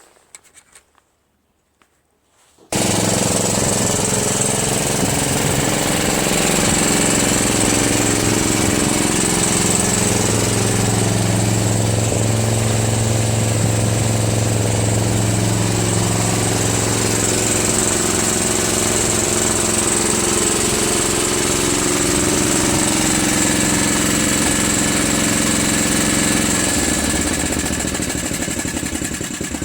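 Murray Select lawn tractor's engine running steadily, cutting in abruptly about three seconds in after near silence; near the end it drops to a lower, quieter note.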